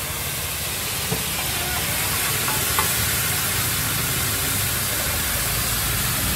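Pad thai rice noodles sizzling and steaming in liquid on a large flat round pan, stirred with metal spatulas: a steady hiss over a low rumble, with two short clicks of spatula on pan.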